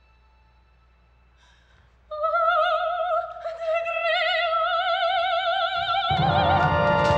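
Near silence with faint held tones, then an operatic voice comes in about two seconds in on a long, high note with wide vibrato. The full orchestra enters loudly under it about six seconds in.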